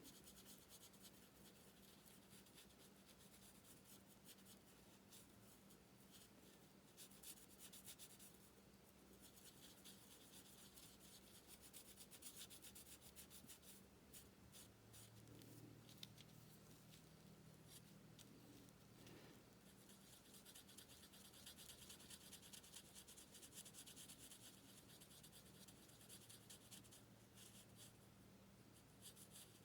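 Faint scratching of alcohol-marker tips rubbing over cardstock in repeated colouring strokes, heard in stretches over a low steady hum.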